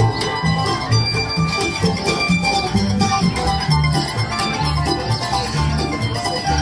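Bluegrass band playing an instrumental passage without singing: banjo and mandolin picking over strummed acoustic guitar, with an upright bass walking underneath.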